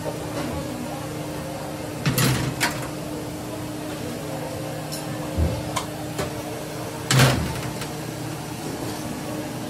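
Metal tongs scraping kebab pieces off long metal skewers, with a few sharp metallic clinks and scrapes, the loudest about seven seconds in, over a steady low background hum.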